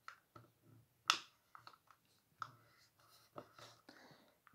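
Scattered small clicks and taps from handcrafting: card paper being pressed and shifted on a cutting mat and a plastic glue tape runner being handled, the loudest click about a second in.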